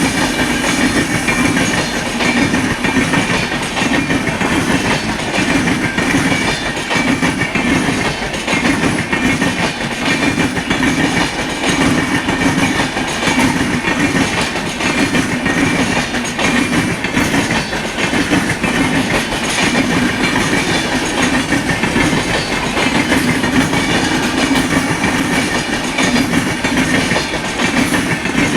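Train running steadily along the track, its wheels clattering over the rails without a break. No clear horn blast stands out.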